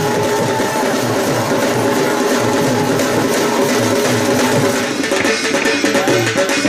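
Background music with drums and a steady beat over held instrumental tones; the percussion grows busier about five seconds in.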